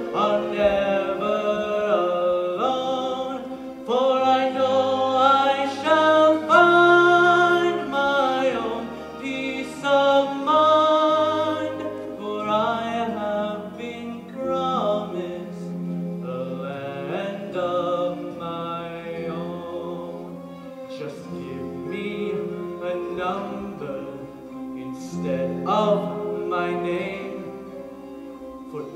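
Musical-theatre singing: a voice holding notes with vibrato over instrumental accompaniment with sustained bass notes.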